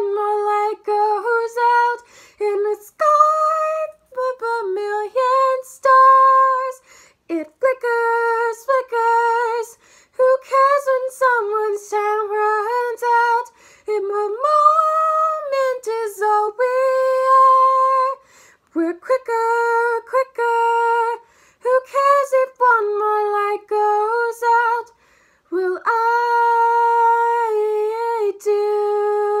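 A woman's voice singing a wordless melody unaccompanied, in held phrases broken by short pauses for breath.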